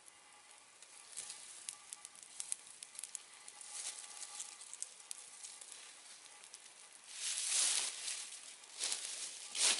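Campfire burning, the wood crackling and hissing with scattered sharp pops. The hiss swells louder for about a second around two-thirds of the way through and again near the end.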